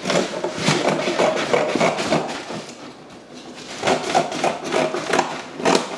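Cardboard carton being handled and cut: irregular crackling and scraping of stiff cardboard, then a run of sharp knocks and clicks near the end.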